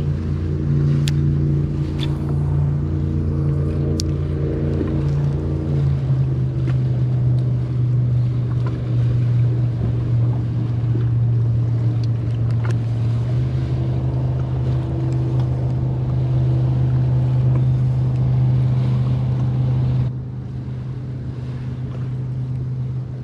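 Bass boat's outboard motor running under way, with wind rushing past. The engine note steps down slightly a couple of times, and the sound eases off about twenty seconds in.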